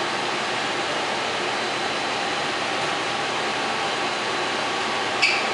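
Polielettronica LaserLab photographic printer running: a steady machine whir and hiss with a faint high whine. A brief high chirp sounds near the end.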